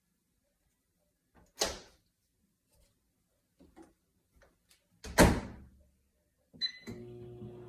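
A sharp knock, then a louder door-like slam about five seconds in. Near the end come a short electronic beep and the steady hum of an appliance starting up.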